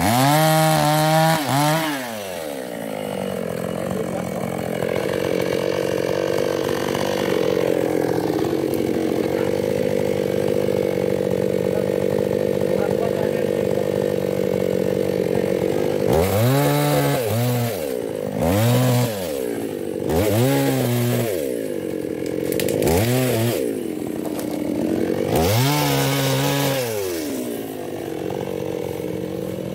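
Small two-stroke chainsaw, a New West 628, revved briefly at the start and then idling steadily. In the second half it is revved up in about six short bursts, each dropping back to idle.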